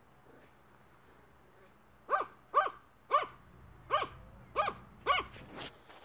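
A Yorkshire Terrier barks in play: six short barks come in quick succession, about half a second apart, starting about two seconds in.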